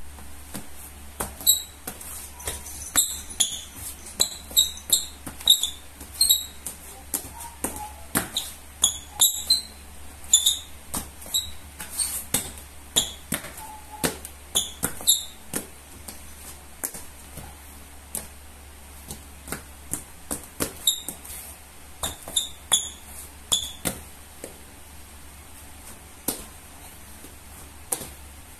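Rubber soles of Peak Tony Parker basketball shoes squeaking and tapping on a linoleum floor during quick footwork. Short sharp chirps come amid the footfalls, clustered mostly in the first half with a few more past the middle, the sign of soles gripping the floor.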